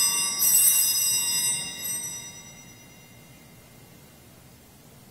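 Altar bells rung at the elevation of the chalice at the consecration. They are rung again about half a second in and more softly near two seconds, and the bright, high ringing dies away by about three seconds in.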